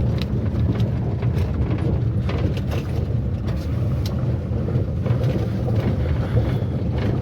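Cabin rattling of a 2012 Maruti Suzuki WagonR driven over a rough road: many short knocks and clicks from the body, roof and trim over a steady low road and engine rumble. The rattling is the loosening of an old, high-mileage car's body fittings.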